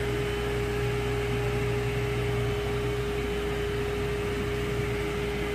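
Steady machine hum with one constant mid-pitched tone over a low drone.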